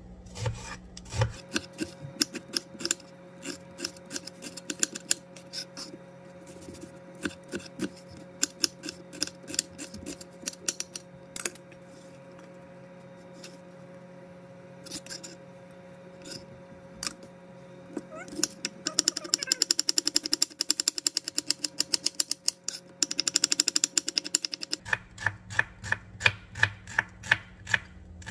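Kitchen knife chopping onion on a plastic cutting board: scattered knife taps at first, a fast run of rapid chopping past the middle, then steady slicing at about four strokes a second near the end.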